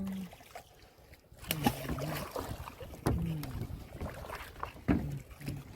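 Several sharp knocks and clatters, about a second or two apart, among brief low murmured voices.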